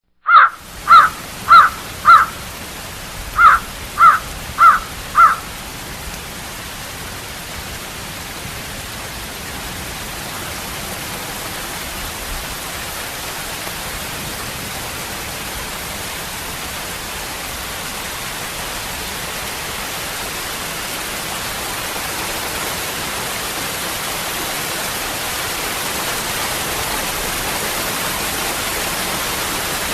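Waterfall rushing steadily, growing slightly louder toward the end. In the first five seconds a bird calls loudly eight times, in two sets of four.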